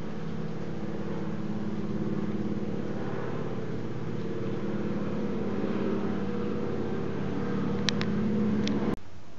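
Seaplane engine droning steadily as it flies over, with a few sharp clicks near the end; the drone cuts off suddenly about nine seconds in.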